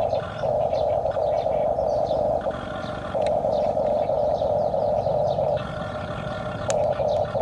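Electric motors and gears of a radio-controlled toy excavator whirring in spells that stop and start every second or two. Short chirps sound above it.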